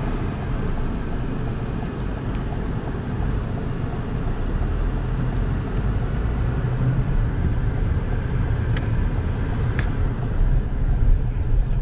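Steady road and engine noise heard inside a moving car's cabin, heaviest in the low end, with a few faint ticks.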